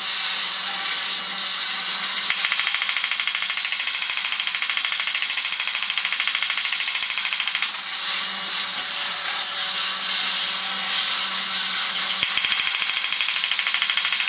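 Vintage battery-operated tin toy robot running: its small electric motor and gear train whir with a fast, buzzy clatter as it walks. The sound changes a few times as the mechanism goes through its actions, with a brief dip about eight seconds in.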